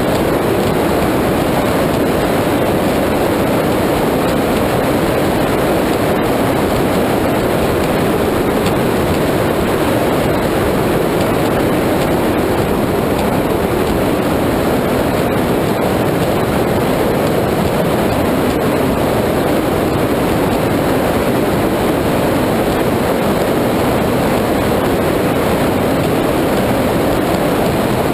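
High-performance powerboat running at speed, heard from on board. Its engines, the rushing wind and the hull through the water blend into one steady, loud rush with no let-up.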